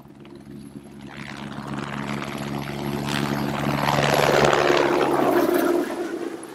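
Logo intro sound effect: a low steady drone under a swelling rush of noise that builds to a peak about four to five seconds in, then drops away and fades near the end.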